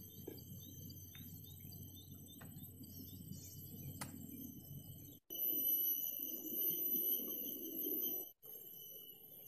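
Insects droning in steady, high-pitched tones over faint outdoor ambience at a tropical lake edge, with a few short chirps early on. The background cuts abruptly about five seconds in to a louder stretch with a low rumble, and cuts back about three seconds later.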